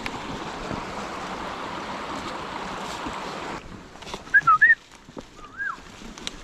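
Steady rushing wind noise on the microphone during a mountain bike descent, cutting off abruptly about three and a half seconds in. A few short, high squeaks follow, two close together and then one that rises and falls.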